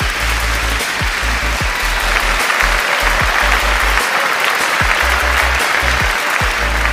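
Outro music with deep electronic bass drum hits that drop in pitch, under a loud sound effect of applause.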